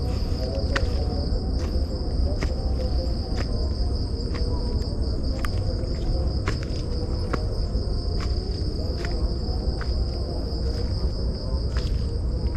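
Steady high-pitched trilling of night insects, with the walker's footsteps on a leaf-strewn dirt path as sharp ticks about once a second over a low rumble.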